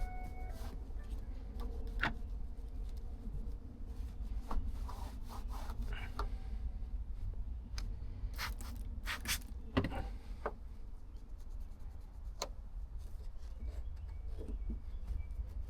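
Hands working on plastic car trim and light fittings: rubbing and scraping with scattered sharp clicks, the busiest stretch a little past the middle, over a steady low rumble.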